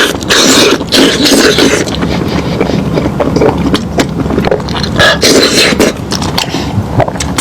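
Close-miked chewing and mouth sounds of someone eating meat: irregular wet clicks, smacks and crunches.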